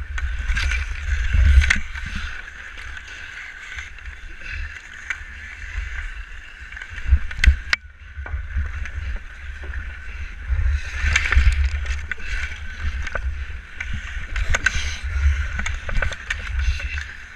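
Ice skates scraping and carving on outdoor ice, with wind rumbling on a body-worn camera's microphone and scattered sharp clacks of hockey sticks and puck. The loudest clack comes about seven and a half seconds in.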